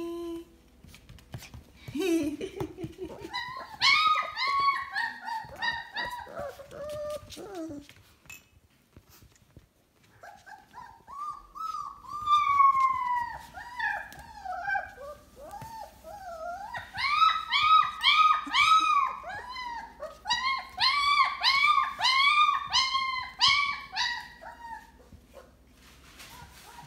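Four-week-old puppies whining and yipping in rapid, high-pitched calls, each one rising and falling. There is a run of calls about two seconds in, a short pause, and then a longer run of calls from about ten seconds in until near the end.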